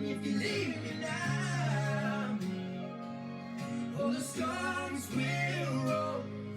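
Background music: a country-style song with guitar and a singing voice.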